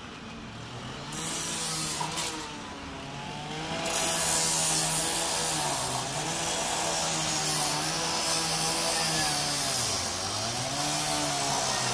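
Petrol-engined power saw cutting through a locked metal gate, the engine's pitch rising and dipping again and again as the blade bites, with a hissing cutting noise that grows louder about four seconds in.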